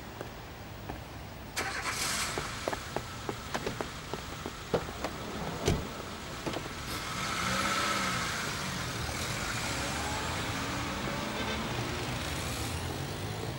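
Street traffic: car sound rising about a second and a half in and swelling around the middle, with scattered sharp clicks like footsteps on pavement during the first half.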